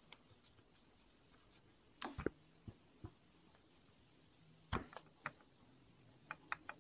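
A few soft knocks and taps of a wooden rolling pin and hands on a wooden board while a clay slab is rolled out, in small clusters about two seconds in, near five seconds and near the end, with quiet between.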